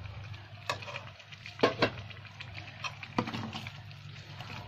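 A spoon scraping and knocking as a thick ground onion-coconut paste is scraped into a pressure-cooker pot of chicken curry: a handful of sharp clicks over a steady low hum.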